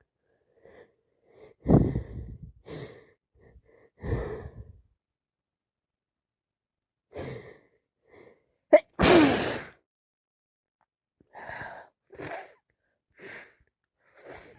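A woman with a cold sneezing: a few short breathy bursts and catching breaths build up to one loud wet sneeze about nine seconds in, followed by four sniffs.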